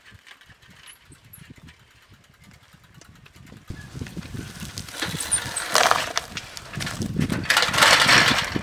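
Bicycle rattling over a rough dirt track as it comes close, then clattering down onto the ground near the end.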